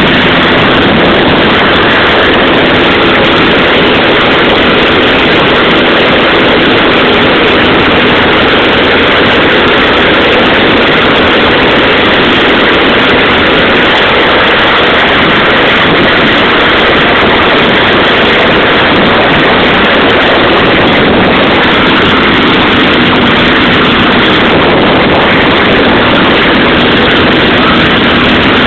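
Piston engine and propeller of a single-engine high-wing light airplane running steadily in flight, heard from inside the cabin as loud, even engine and propeller noise.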